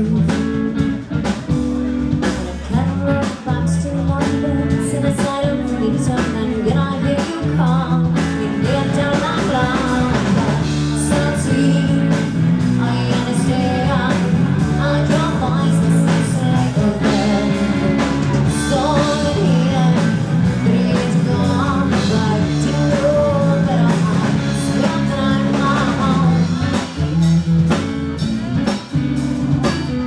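Live blues-rock band playing: electric guitar, bass guitar and drum kit, with a woman singing lead.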